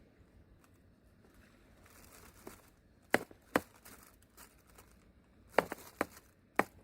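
Handling noises: light rustling and crinkling with five sharp clicks or knocks, two about three seconds in and three more near the end.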